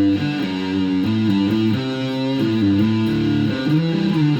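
Background music led by guitar, with a bass line, moving through chord changes about every half second to second.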